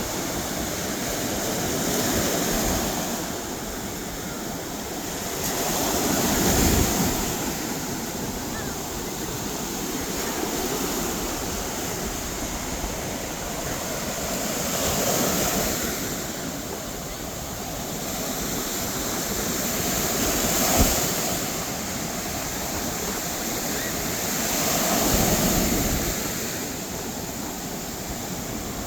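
Surf: waves breaking and washing up on a beach, a steady rush that swells every four to five seconds.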